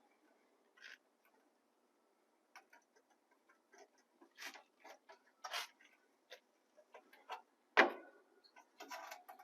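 Scattered light clicks, taps and brief rustles from the condenser unit's sheet-metal cover and parts being handled, with one louder knock a little before the end.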